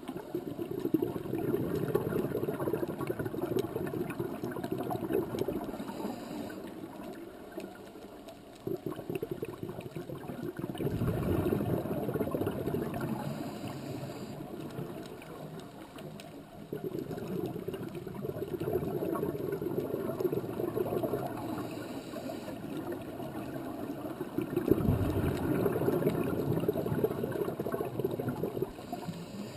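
Gushing, gurgling water noise that swells and fades in slow surges every several seconds.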